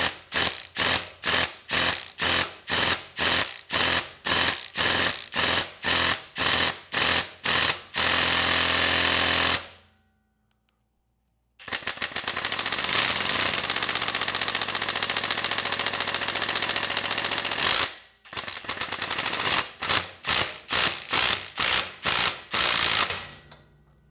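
Impact wrench at its highest setting, close to 300 foot-pounds, hammering on a rust-seized spark plug in a Briggs & Stratton small engine's head: many quick trigger bursts, then two longer steady runs with a short pause between, then more quick bursts. The plug is stuck because water got into the cylinder and rusted it in place, and it comes loose during the hammering.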